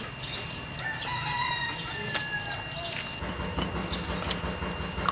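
A rooster crowing in the background about a second in, a slightly falling call lasting about a second, among scattered light knocks.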